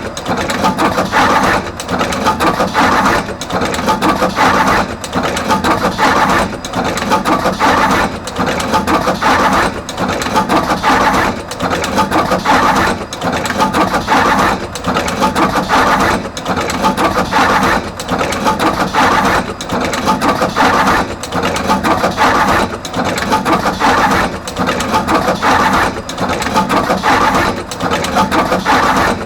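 Artos CR22 automatic wire cut, strip and crimp machine running in production, cycling steadily with a regular repeating clatter roughly every second or two as it processes and crimps wires at both ends.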